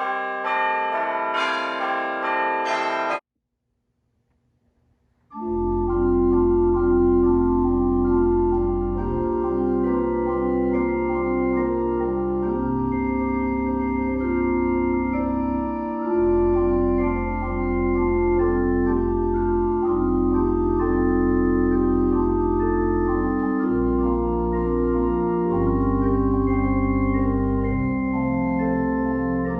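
Organ music: a held chord that breaks off about three seconds in, then after a short silence slow sustained organ chords over a deep pedal bass line.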